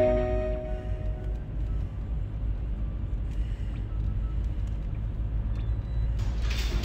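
Steady low rumble of a car driving on a highway, engine and tyre noise heard from inside the cabin, with a brighter hiss joining near the end.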